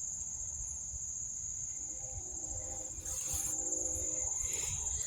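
Insects trilling in one steady, unbroken high-pitched drone, over a low rumble.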